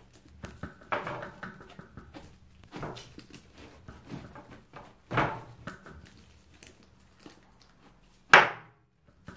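Kitchen knife cutting and scraping through a jackfruit's rind in a few separate strokes, with small clicks in between. One sharper, louder sound comes near the end.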